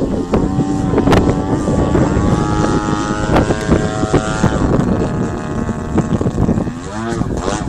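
Strong wind buffeting the microphone over the steady drone of an Extra 330S aerobatic plane's engine. The engine's pitch bends up and down near the end.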